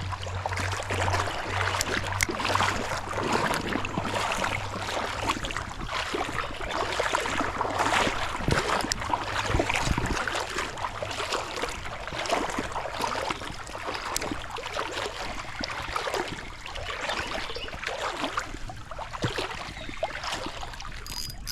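Creek water rushing and burbling steadily, a strong current close by.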